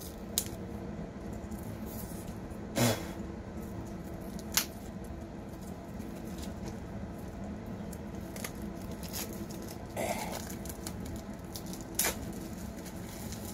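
Scattered crinkles and clicks of a small deck of game cards being opened and handled, over a steady low hum. The sharpest crinkle comes about three seconds in.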